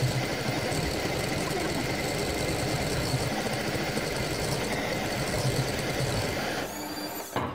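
Electric hand mixer running steadily, its beaters whirring through cake batter in a bowl, with a thin high whine; it stops near the end.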